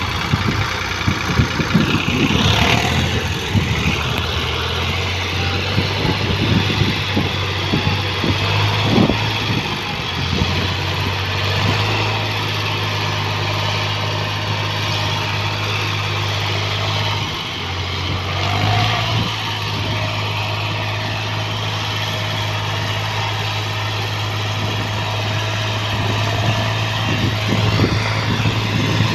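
Farm tractor's diesel engine running steadily as the tractor pulls a tillage implement across a ploughed field. The engine note dips briefly about two-thirds of the way through, then picks up again.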